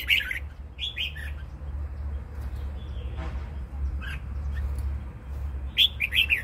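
Red-whiskered bulbul singing short, quick, warbled phrases: one at the start, another about a second in, a brief note past halfway, and a run of several notes near the end. A steady low hum lies underneath.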